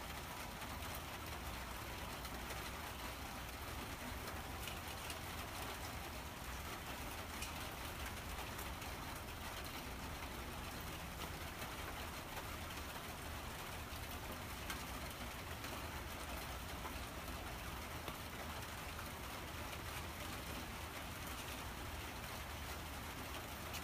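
A cat eating wet food from a small dish: faint scattered chewing and licking ticks over a steady, even hiss.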